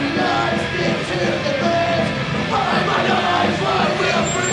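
Live punk rock band playing loud and steady, with yelled vocals over guitars and drums.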